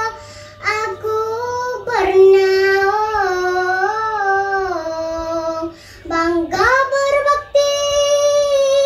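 A young girl chanting a Malay syair solo, holding long notes that waver and bend in ornamented turns, with short breaks about half a second in and about six seconds in.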